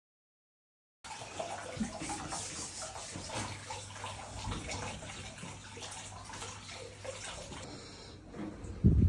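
After about a second of silence, hot spring water pours steadily into a bath. A dull low bump comes near the end.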